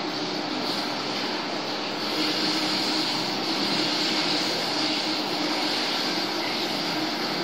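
Steady running noise of aquarium aeration: bubbles streaming from an air stone, with a low steady hum.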